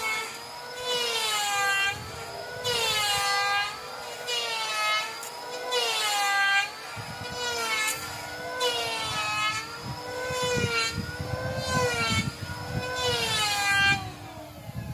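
A power tool in a wooden-boat yard runs with a high whine whose pitch rises and falls about once a second, with louder rasping strokes every second or two. From about seven seconds in, a low rapid rattling joins it.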